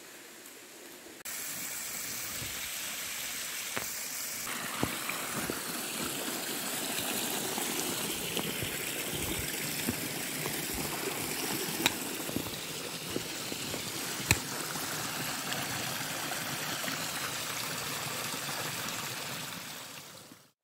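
A small forest stream running and trickling over rocks, a steady rush of water that comes in about a second in and fades out at the end, with a few sharp clicks over it.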